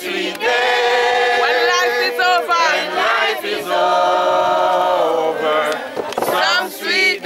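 A group of voices singing a hymn together in long held notes, with a few slides between pitches.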